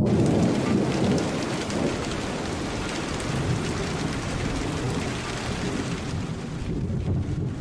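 Mount Marapi erupting: a steady, deep, rumbling roar with a hiss over it, strongest in the first second or so.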